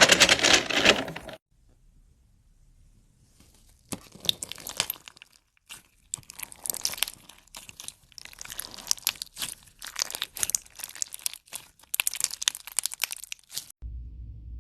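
Crunchy, crumbly material being crushed, crackling and crunching. A dense crackle stops about a second and a half in; after a short pause, a long run of fine, sharp crackles follows. Near the end it cuts to a steady low hum.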